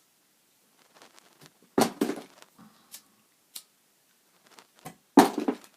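Plastic lighters being handled and tested: scattered sharp clicks and short clattering bursts, loudest about two seconds in and again near the end.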